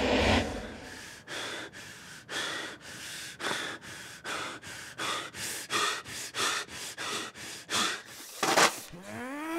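A person breathing hard in quick, gasping breaths that speed up from about two to three a second. It ends with one bigger gasp and a short rising cry.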